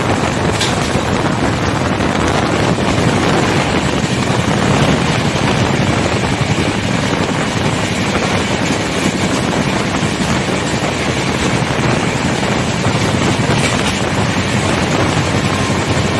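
Moving passenger express train running steadily along the track: a constant rumble of wheels on rail mixed with rushing air. A faint steady tone comes in near the end.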